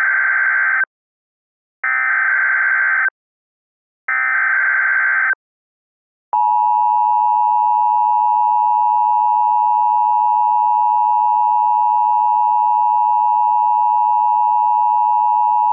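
Emergency Alert System tones. Three one-second bursts of buzzing digital SAME header data with short gaps come first, then about six seconds in the steady two-tone EAS attention signal begins and holds.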